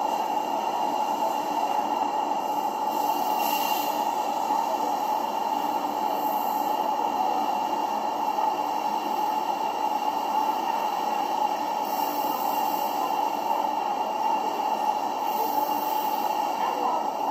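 A steady, even hiss that does not change, with no distinct knocks, clicks or voices.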